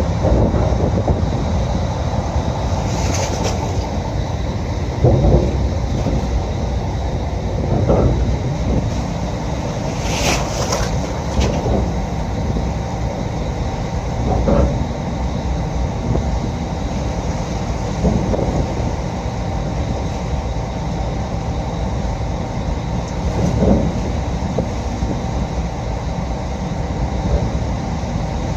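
Steady low rumble of a ferry's engines heard on the vehicle deck, with an irregular knock or creak every few seconds.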